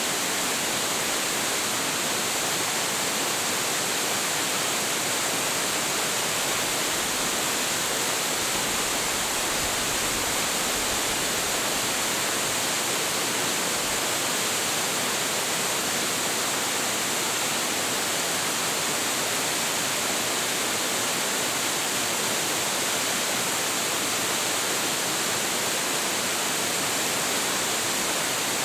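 A tall, high-volume waterfall pouring steadily, a dense, even rush of falling water with a bright hiss on top and no breaks or changes.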